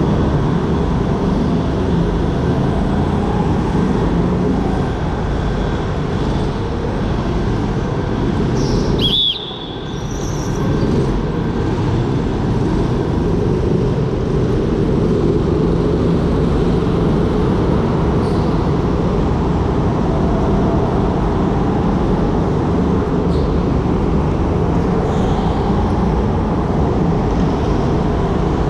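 Go-kart running at speed around a track, heard from on board: a steady loud rush of motor, tyre and wind noise. About nine seconds in the noise dips briefly and a short high squeak sounds.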